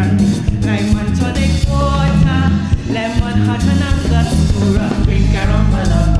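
Live band playing soca parang with a singer's voice over a strong, steady bass line.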